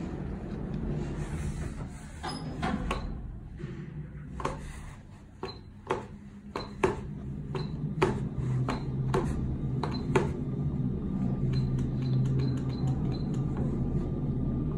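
Elevator car's floor button pressed over and over: a long run of sharp clicks starting about two seconds in, over a steady low hum that gets a little louder about eight seconds in.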